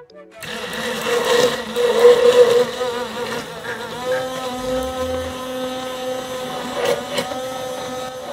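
Handheld immersion (stick) blender whirring in a glass jar, emulsifying eggs and oil into mayonnaise. It starts about half a second in with a steady motor whine whose pitch wavers at first, then holds steady.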